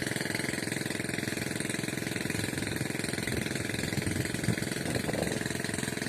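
Small engine-driven water pump running steadily, with a fast, even chugging.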